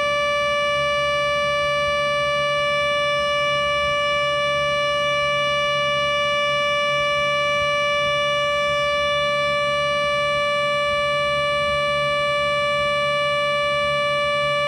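Computer-synthesized Federal Sign & Signal Thunderbolt 1000 civil defense siren, modelled with a 5MA2 blower, holding one steady tone without rising or falling, with a low hum beneath it.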